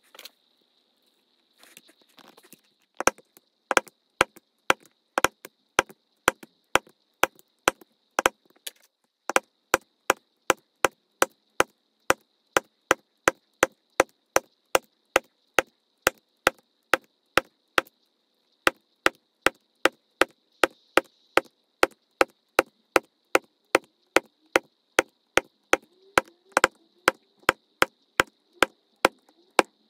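Mallet striking a leatherworking tool over and over, a few scattered blows and then a steady beat of about two sharp knocks a second, with a short pause about halfway through.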